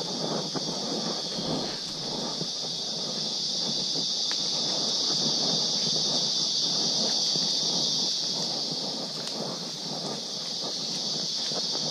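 Steady, high-pitched drone of an insect chorus in tropical cloud forest, a little louder in the middle. Under it, footsteps crunch and rustle on the leaf-littered trail.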